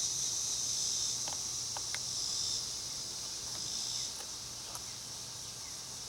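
Steady high-pitched chirring of insects such as crickets, swelling and easing slightly, with a faint low hum and a few faint ticks about a second or two in.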